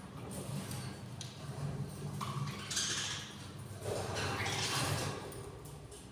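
Budgerigars in a nest box: a few raspy, hissing calls and some scratchy tapping clicks over a steady low hum.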